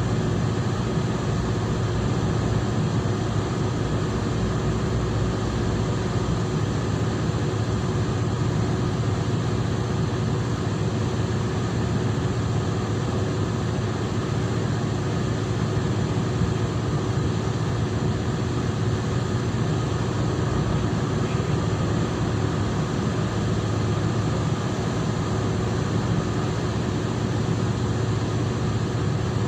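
Marine diesel engine running at a steady speed: a constant low drone with a steady hum above it, unchanging throughout.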